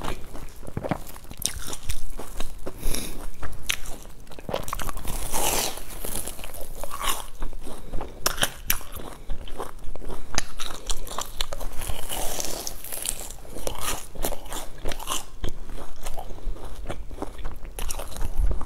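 A person biting and chewing a crisp sesame-crusted bun, its crust giving many sharp, crackly crunches one after another, heard close up through a clip-on microphone.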